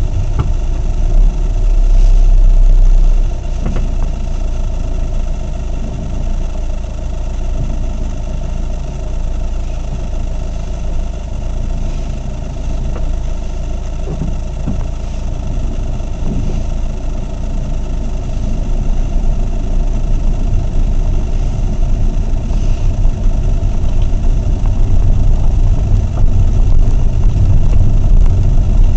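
A vehicle's engine running steadily while on the move, with a held hum and a strong low rumble. The rumble is loudest for a couple of seconds from about one second in.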